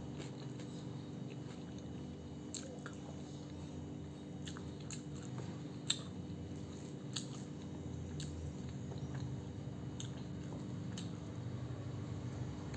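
Person eating chicken pulao close to the microphone, chewing, with a dozen or so short crisp clicks and crunches scattered through, one sharper about halfway, over a steady low hum.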